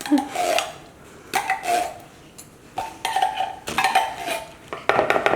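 A spoon scraping and clinking against a bowl several times as food is spooned in, with a quick run of clinks near the end.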